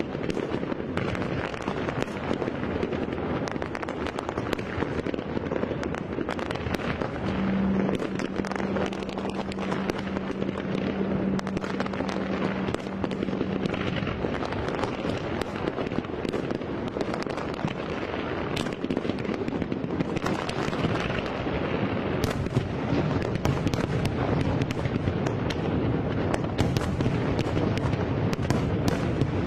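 A fireworks display: a dense, unbroken run of bangs and crackles from many shells at once. For about six seconds in the first half, a steady low tone sounds beneath them.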